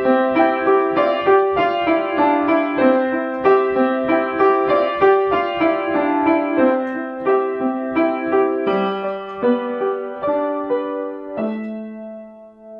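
Solo piano playing a gentle waltz in a steady run of notes, ending near the end on a held chord that rings and fades away.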